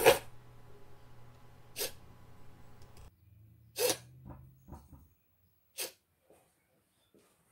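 Zeroid animatronic running its PIR-triggered sequence: four short, sharp hissing bursts about two seconds apart over a low steady hum. The hum stops about five seconds in.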